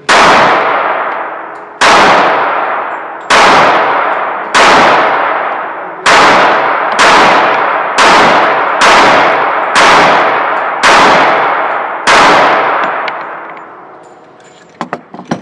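Eleven gunshots fired at a steady pace, about one a second, in an indoor concrete shooting range; each shot rings out in a long echo that overlaps the next. The last shot comes about twelve seconds in, followed by a few faint clicks.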